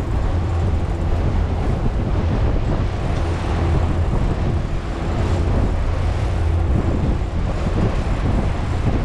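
Outboard motors of a power catamaran running steadily with the boat under way, with wind buffeting the microphone and water rushing past the hull.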